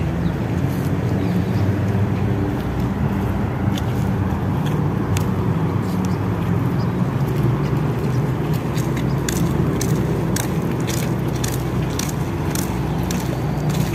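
Steady low rumble of road traffic, with footsteps sounding about twice a second in the second half.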